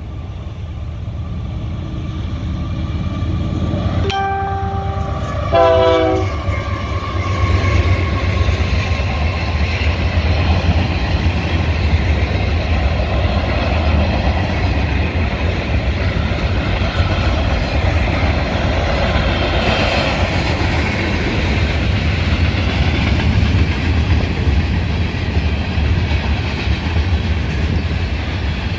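Union Pacific mixed freight train coming up and passing: its horn sounds two blasts about four seconds in, the second shorter and louder, over a low rumble that builds as the train nears. The freight cars then roll by with a steady rumble and clatter of wheels on the rails.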